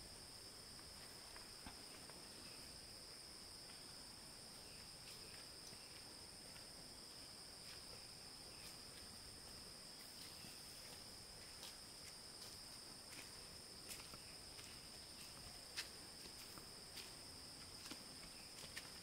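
Faint, steady insect drone in two high pitches, with a few faint ticks scattered through it.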